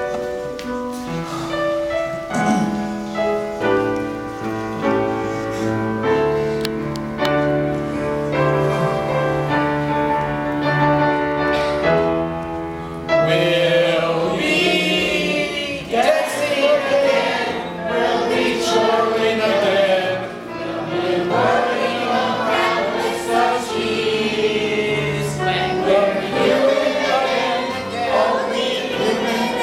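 A stage musical's ensemble number. Instrumental accompaniment plays held chords, and a chorus of voices comes in singing over it about 13 seconds in.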